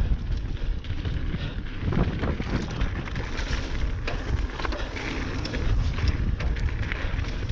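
Wind buffeting the microphone while a mountain bike is ridden over rough trail, with a heavy rumble and many scattered clicks and rattles from the bike and tyres.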